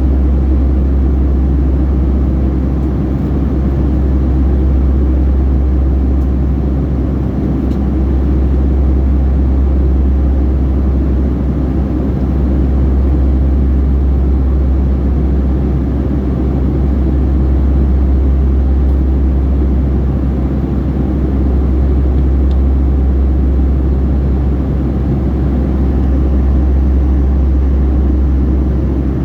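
Steady cabin noise of a Boeing 757-300 airliner in flight: a deep, constant rumble of engine and airflow noise that swells and eases slightly every few seconds.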